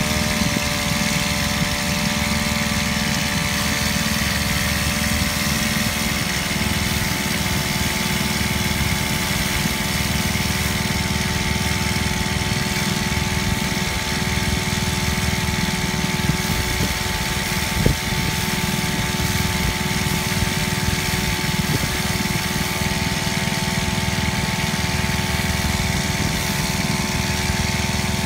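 Small brush-cutter engine converted into a portable water pump, running at a steady speed as it pumps ditch water through a hose. One brief knock sounds about two-thirds of the way through.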